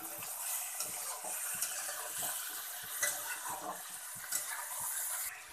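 Chicken and onions sizzling in a hot metal kadhai while a metal spatula stirs and scrapes them, with scattered clicks and knocks of the spatula against the pan.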